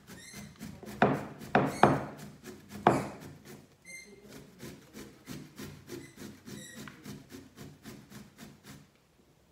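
Peeled zucchini being grated on a flat metal hand grater: a steady run of quick rasping strokes, several louder ones between one and three seconds in, stopping just before the end.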